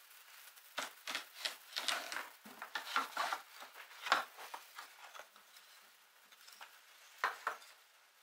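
Utility knife scraping and cutting at thin oak strips on a small clad board: a quick run of short scrapes and clicks. Near the end, two light wooden knocks as the small pieces are set down on the bench.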